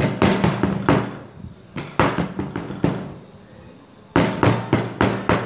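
A cake tin full of batter is tapped repeatedly on a table to knock out air bubbles. It makes quick runs of sharp knocks, with a short lull about three seconds in before another run.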